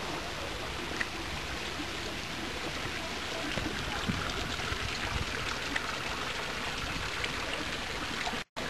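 Steady rushing of running water, like a stream flowing among boulders, with a brief dropout near the end.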